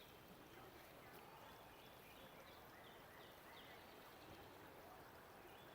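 Near silence: faint outdoor ambience, a steady soft hiss with a few faint, short high chirps.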